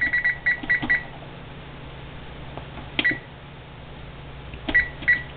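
Electric oven's touch control panel beeping as the temperature up-arrow is pressed to raise the setting: a quick run of short beeps at one pitch, a single beep about three seconds in, and a few more near the end. A steady low hum runs underneath.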